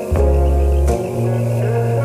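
Ambient music: layered sustained tones over deep held bass notes, the bass changing pitch about a second in.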